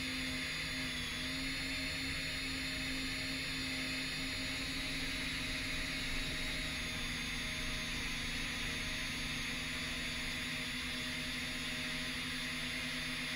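Electric motors and propellers of a 10-inch FPV quadcopter humming steadily in cruising flight, the pitch wavering slightly now and then, under a constant hiss.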